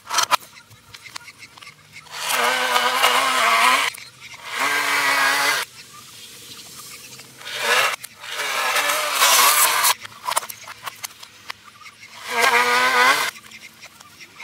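Corded Toro Power Shovel electric snow thrower running in four short bursts of one to two seconds each, its motor whine wobbling and dipping in pitch under load, with a hiss of snow being thrown.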